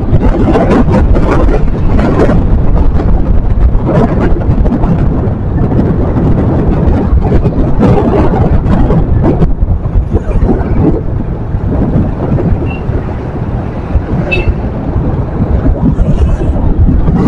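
Wind rushing over the camera microphone with engine and road noise from a motorcycle on the move, swelling and easing as it rides.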